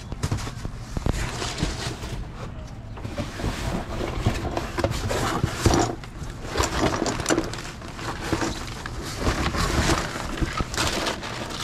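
Rummaging by hand through discarded boxes and bags in a dumpster, heard as irregular rustling, scraping and knocking with a low rumble underneath.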